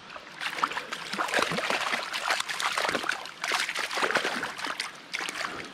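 A hooked trout thrashing at the water's surface: a run of irregular splashes, the sign of a lively, fighting fish.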